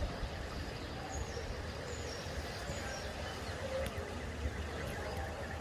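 Steady rush of fast-flowing floodwater running down a street, with a few short, high bird chirps over it.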